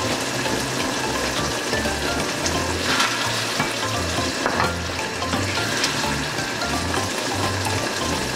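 Eggplant and ground pork in a thick sauce sizzling and bubbling in a nonstick frying pan, stirred with a wooden spatula that scrapes the pan a few times.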